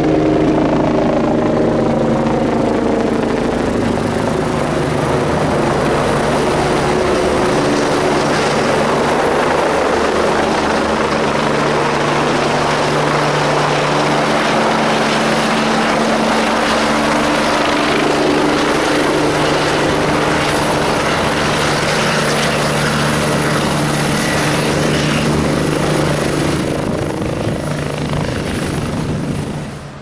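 Kawasaki BK117 twin-turbine medical helicopter descending to land close by: a loud, steady clatter of rotor blades over turbine whine. The sound cuts off sharply near the end.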